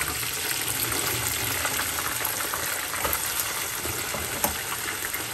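Briouat pastries frying in hot oil, sizzling steadily with scattered small crackles.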